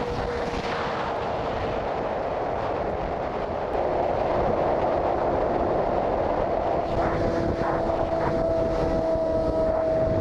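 Heavy wind rushing over a bike-mounted camera at freeway speed, with the steady note of a 2007 Yamaha R6's inline-four engine cruising underneath. The wind gets louder about four seconds in.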